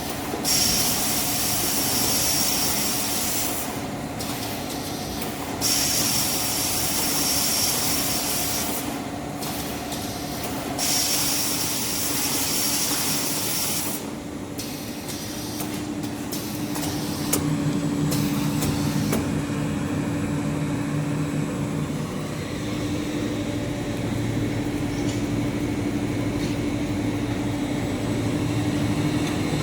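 Automatic maxi roll paper band saw cutting machine running, with three hissing bursts of about three seconds each in the first half. After that it settles into a steadier low hum.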